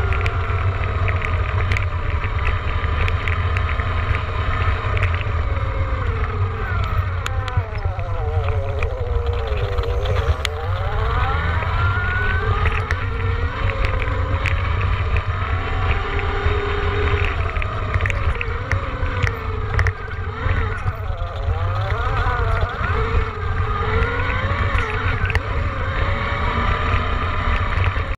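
Electric dirt bike's motor whining while riding, its pitch rising and falling with speed, over heavy wind rumble on the microphone.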